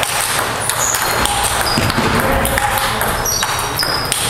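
Hard balls clicking and pinging in quick irregular succession, several strikes a second overlapping in a large, echoing hall.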